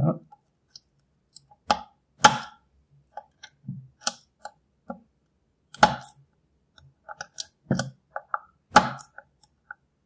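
Scattered metallic clicks and ticks from a pick and tensioning tool working inside the cylinder of a GMG multi-point pump lock, with about six sharper clicks among fainter ones, as the lock's central actuator post is being worked into place.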